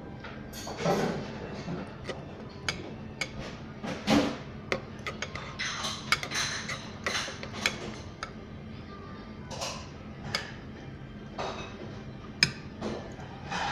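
A metal spoon clinking and scraping against a ceramic bowl while scooping curry rice, in irregular clicks and knocks over a steady low background hum.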